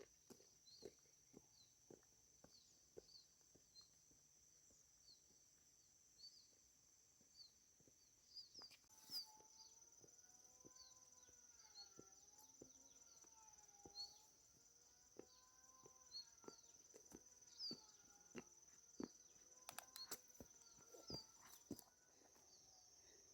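Faint, steady high-pitched insect drone, like cicadas or crickets, with small repeated chirps and scattered light clicks and knocks. From about nine seconds in, faint wavering tones join it for most of the rest.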